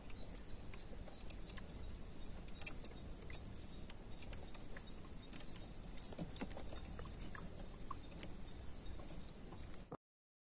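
Faint scattered clicks and small knocks of a screwdriver and wire being worked into a terminal of a three-phase motor starter, over a low steady hiss. The sound cuts off to silence near the end.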